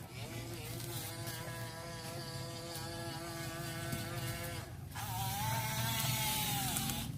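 Small electric motors of a toy RC excavator running with a steady buzzing whine; the whine stops briefly about two-thirds of the way through and starts again at a different pitch.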